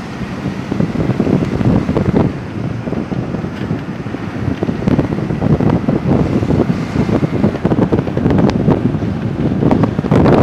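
Wind buffeting the microphone on the open top deck of a moving bus, a loud gusting rumble that swells and falls.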